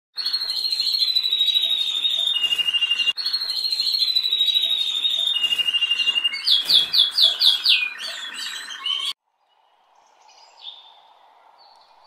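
Canary singing: long, fast trills, one high and one lower, then a string of quick rising notes, cutting off suddenly about nine seconds in. After that, faint chirps over a steady hiss.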